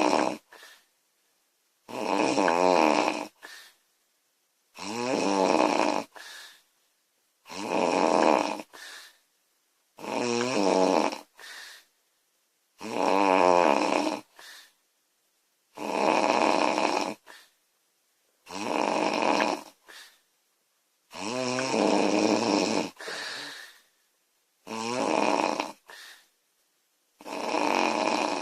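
Woman snoring loudly in a steady rhythm, one snore about every two and a half to three seconds. Each snore lasts about a second and is followed by a short, fainter breath sound.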